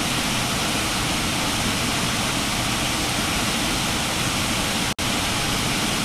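Steady rushing of a cascading waterfall, an even roar of falling water that holds at one level and cuts out for an instant about five seconds in.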